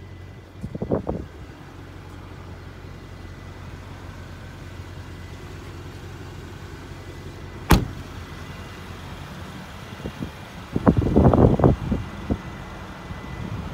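A Mercedes-AMG E63 S's 4.0-litre V8 idling with a steady low hum, a single sharp car-door slam about eight seconds in, and a couple of seconds of rustling and scuffing near the end.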